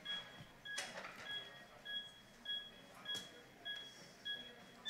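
Resuscitation device's CPR metronome giving short, evenly spaced beeps at a little under two a second, pacing chest compressions at about a hundred per minute. Two sharp clicks from equipment being handled come about a second in and just past three seconds.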